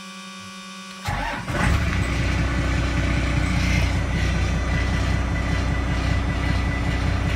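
Dash warning buzzer sounding steadily for about a second, then the 5.9-litre straight-six Cummins turbo diesel of a 1991.5 Dodge D250 is cranked by its starter and catches almost at once, settling into a steady diesel idle with an even clatter.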